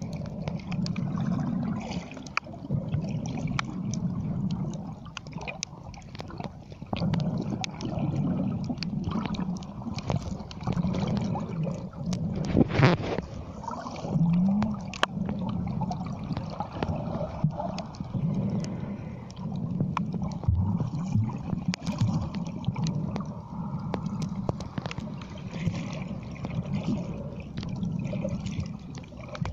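Underwater sound picked up by a camera held below the surface while snorkelling: muffled water movement that swells and fades every couple of seconds, with scattered sharp clicks and one louder crack partway through.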